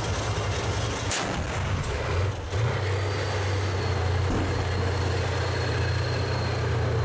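Tracked battle tank on the move, its engine running with a steady deep drone under heavy noise. A single sharp crack comes about a second in.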